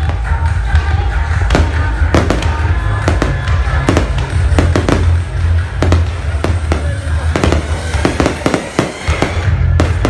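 Fireworks going off in a rapid, irregular string of bangs over loud music with a heavy bass.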